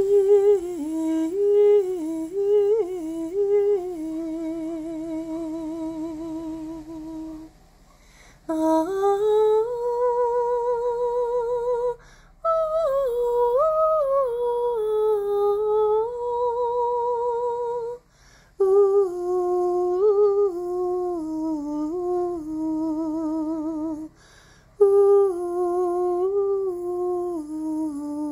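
A voice humming a slow improvised melody in long phrases, holding notes with a wide vibrato and pausing briefly between phrases.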